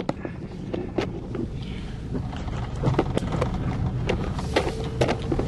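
Road and engine noise inside a moving car's cabin: a steady low rumble, with scattered sharp clicks and knocks at uneven intervals.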